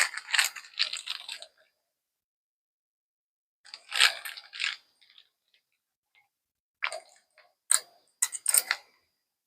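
Small plastic bag of spare parts crinkling as it is handled, in three short bursts of crackling.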